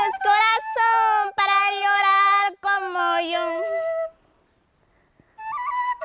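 A girl singing a slow folk song alone, in long held notes, stopping about four seconds in. After a short silence, a quena (Andean cane flute) starts a high melody near the end.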